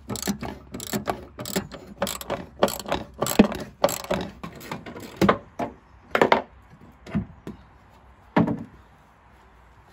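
Hand socket ratchet clicking in quick short strokes as it undoes the 10 mm bolts holding a rear shock absorber's top mount to the car body. The clicking is steady through the first six seconds or so, then thins to a few scattered clicks.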